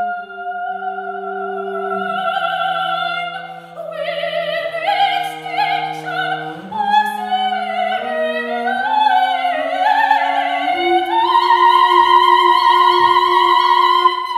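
Soprano singing long notes with vibrato over a bowed double bass holding sustained low notes. The bass line steps down, then climbs, while the voice rises to its loudest near the end, and both stop together.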